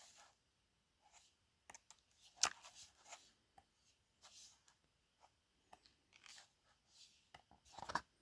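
Faint paper rustles and soft taps as the pages of a book are turned, with one sharper tap about two and a half seconds in.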